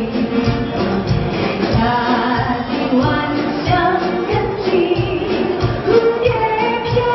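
A woman singing a pop song into a microphone over a backing track with a steady beat, about two beats a second, heard through the hall's PA.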